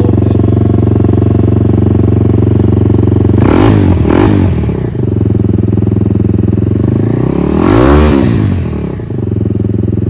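2021 Kawasaki KLX300's single-cylinder engine running through an aftermarket exhaust, idling steadily. The throttle is blipped twice in quick succession about three and a half seconds in, then revved once more, longer, around eight seconds in.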